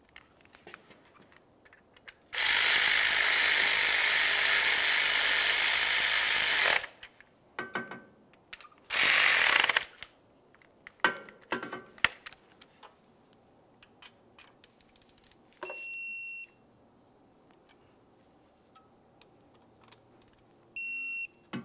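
A cordless ratchet runs a 10 mm heat-shield fastener down for about four seconds, then runs again briefly, with tool clicks in between. Later an electronic torque wrench beeps twice, about five seconds apart, as the nut and bolt each reach 89 inch-pounds.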